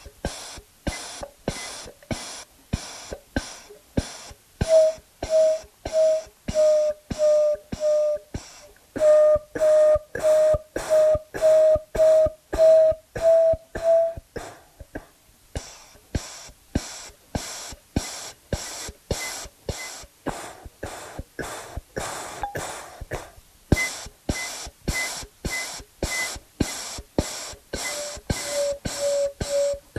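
Electronic dance-theatre score: a steady pulse of sharp clicks, about two a second. A short mid-pitched note sounds on many of the beats, then a higher beep for a while in the middle before the mid note returns near the end.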